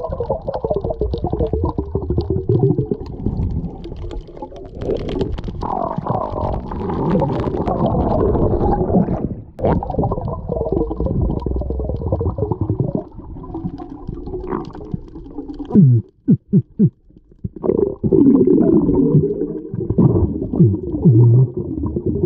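A spearfisher grunting underwater to draw in gag grouper: a long run of low, wavering groans, muffled by the water. Near the end it breaks into a few short, quick grunts before the groaning resumes.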